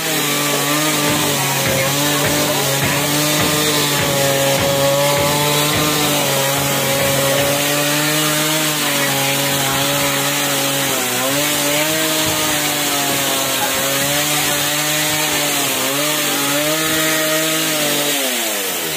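Chainsaw running at high revs while cutting timber, its pitch dipping briefly twice as it bogs in the cut, then falling away near the end.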